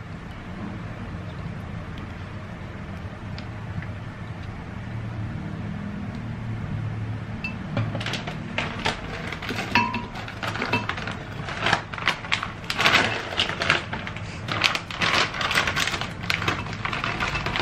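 Drinkable yogurt pouring into a blender jar over banana pieces, a low steady sound. From about halfway, frozen mixed berries are tipped into the jar: a run of irregular clattering knocks and rustles.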